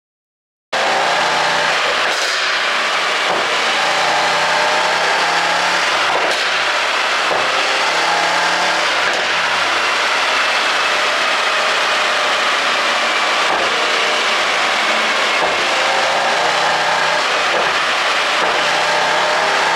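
Mercedes-AMG E63 4Matic+ twin-turbo 4.0-litre V8 running and revving with rising and falling engine pitch, with a few sharp exhaust pops from an ECU pop-sound tune. It comes in suddenly just under a second in.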